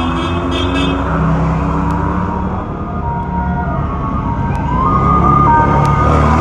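Off-road race vehicles, a side-by-side UTV and a sand buggy, driving slowly past with engines running low. About two-thirds of the way in a high whine comes in and steps up in pitch, holding to the end.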